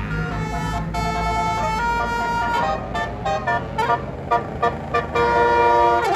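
A bus's telolet basuri multi-tone air horn playing a tune: held notes stepping in pitch, then a run of short toots, ending on a long held chord. A low engine rumble sits under the first part.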